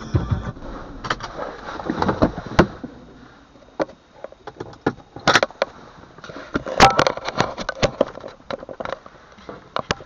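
Music from the car's sound system cuts off about half a second in. Scattered clicks, knocks and small rattles of someone handling things inside the parked car's cabin follow, ending with the dashcam being grabbed from the windscreen.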